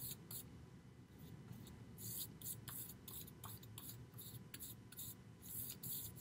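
Bristle paintbrush swishing gesso across a masonite board in quick back-and-forth strokes, faint and scratchy. After a short pause early on, the strokes come steadily about three a second.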